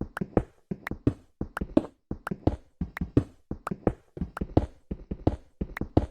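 A steady run of sharp knocks and taps, about three to four a second, irregularly spaced.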